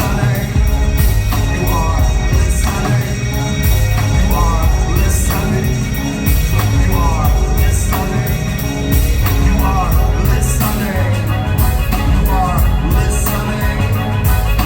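Rock band playing live, with a heavy steady bass line, a regular drum beat and short repeating melodic figures over it.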